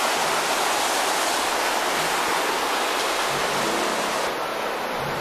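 Steady, loud rush of the Merced River's whitewater pouring over granite at the brink of Nevada Fall.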